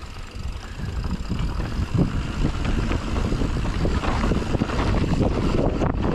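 Mountain bike riding a rough dirt trail: tyres rumbling and the bike rattling and knocking over the ground, growing louder as speed builds, with wind on the microphone.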